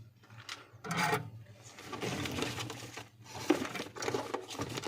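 Small hand tools scraping and clicking against a mobile phone during charging-socket repair work, over a steady low hum.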